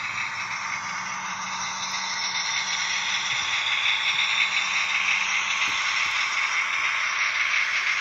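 Model freight train rolling past on its track: the wagons' wheels and the V142 diesel shunter model pushing them make a steady rattling hiss that grows louder over the first few seconds as the locomotive comes by.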